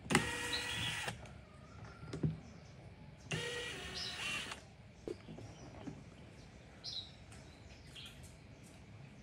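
Cordless impact driver spinning out the mounting screws of a speaker driver, in two bursts of about a second each, three seconds apart, with a few light knocks between.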